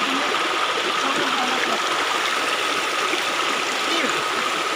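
Small rocky creek running steadily over stones, a constant rushing, with a thin steady high tone behind it.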